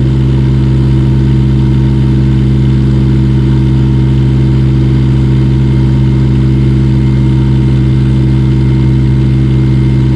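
Kubota D722 three-cylinder diesel of a 1.2-ton mini excavator running steadily at raised throttle. Its hydraulics are pulling with boom, bucket curl and arm against a fixed ground anchor at close to full lifting force.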